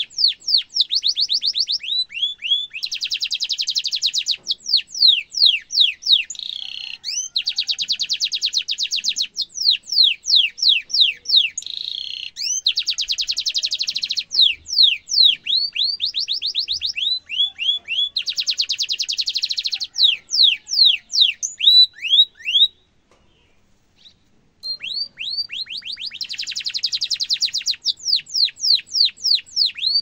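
Domestic canary singing: series of quick downward-sweeping whistled notes alternating with long, very rapid rolling trills, broken by a pause of about two seconds roughly three quarters of the way in.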